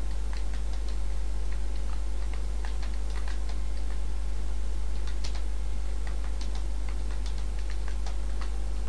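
Computer keyboard keys clicking in irregular runs as a message is typed, over a steady low hum.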